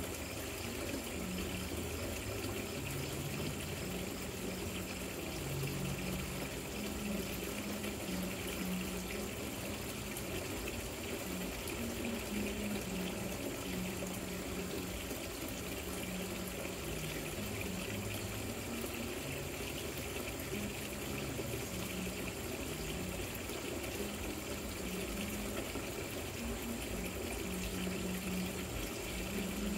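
Water splashing and trickling steadily down a rock-style patio fountain.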